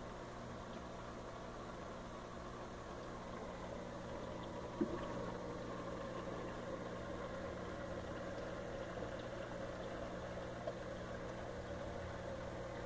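Steady electric hum of running aquarium equipment, such as the tank's pump, with a single short knock about five seconds in.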